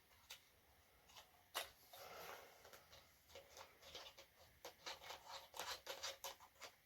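Faint clicks and ticks of small tripod parts being handled as a phone holder is fitted and screwed onto the tripod's short mounting screw. The clicks are scattered at first, then come in a quicker run in the second half.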